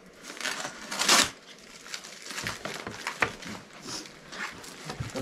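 Brown packing tape being cut and pulled off plastic-sack-wrapped parcels, with irregular crinkling and rustling of the plastic and a short loud rip about a second in.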